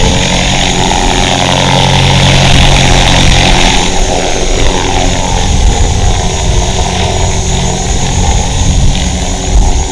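Align T-Rex 450-class electric RC helicopter hovering close by: a steady whine and rotor buzz, the pitch bending up and down from about four seconds in. A wafting note runs through it, which the pilot puts down to a possibly split rotor blade and out-of-track (double-blading) blades.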